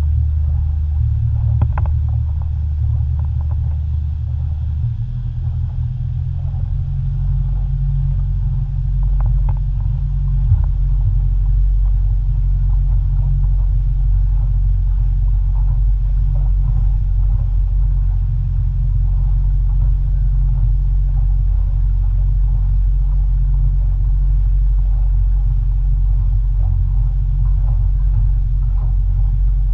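Boat engine running steadily at low speed, a deep rumble whose tone shifts slightly about five seconds in.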